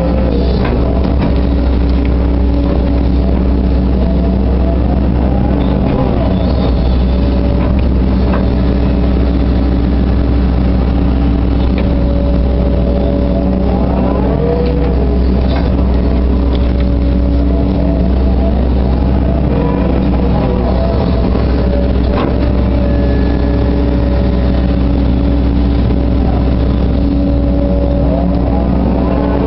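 Hitachi Zaxis 130LCN excavator's diesel engine running steadily under load. A hydraulic whine rises and falls every several seconds as the machine works through its dig-and-swing cycles, with an occasional clank.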